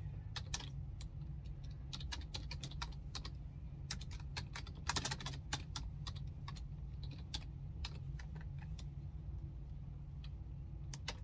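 Typing on a computer keyboard: irregular key clicks, with a quick run of keystrokes about five seconds in, over a steady low hum.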